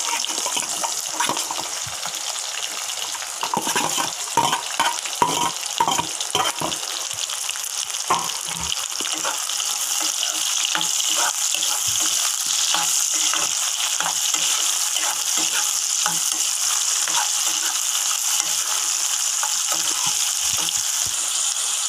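Chopped onions sizzling in hot oil with mustard seeds and curry leaves in a kadai, a steady hiss. A spatula scrapes and knocks against the pan many times during roughly the first nine seconds as they are stirred.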